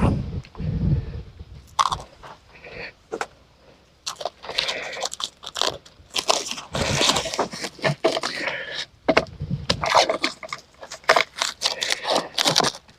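Sawn red oak boards and stickers being handled and stacked, with irregular wooden knocks, scrapes and crunches as boards slide and drop onto the pile.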